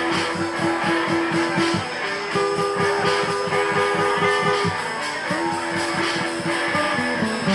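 Live band music with no singing: a guitar holds long notes, a couple of seconds each, over a fast, steady rhythm.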